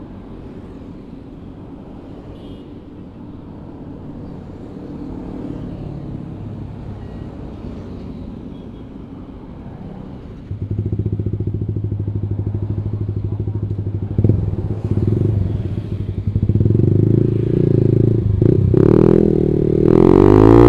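Yamaha sport bike's engine through a Ronin Black Katana three-mode aftermarket exhaust freshly repacked with glass wool: idling low, then abruptly much louder about halfway through, and revving as the bike pulls away, the pitch rising near the end.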